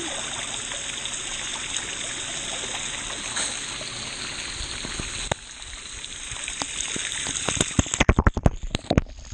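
Pool water rushing and churning against an action camera held at the water's surface, dropping off about five seconds in, then a quick run of sharp splashes and knocks near the end as the camera bobs through the surface.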